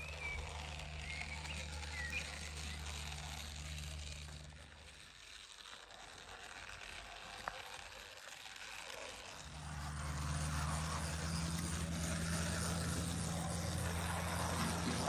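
Model 0-6-0 steam locomotive running along garden railway track, its electric motor and wheels giving a steady low hum. The hum fades in the middle and returns louder about two-thirds of the way through. A few bird chirps come early on.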